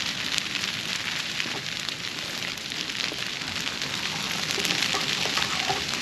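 Grass fire burning through dry broomsedge and leaf litter: a steady crackling hiss with many small pops.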